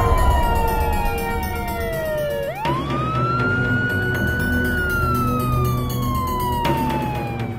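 Police car siren wailing: its pitch falls slowly, sweeps back up quickly about two and a half seconds in, holds, then slowly falls again. Background music plays underneath.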